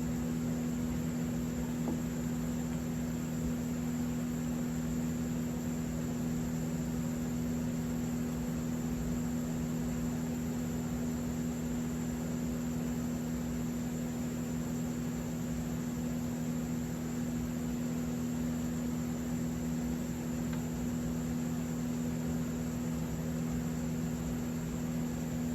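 A steady low electrical hum with a faint hiss, unchanging throughout.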